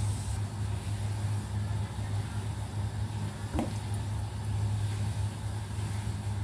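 A steady low hum runs throughout, with one short splash about three and a half seconds in as a slab of raw beef goes into the water in a stainless steel wok.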